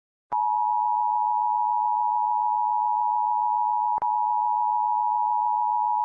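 Emergency Alert System attention signal: a steady two-note tone near 1 kHz, starting after a brief silence, that announces an emergency broadcast message. A short click sounds about four seconds in.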